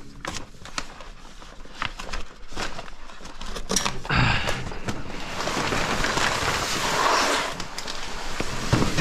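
Heavy plastic wrapping crinkling and rustling as it is pulled and bunched up by hand. Scattered clicks and light knocks come first, then about four seconds in the crinkling becomes dense and continuous.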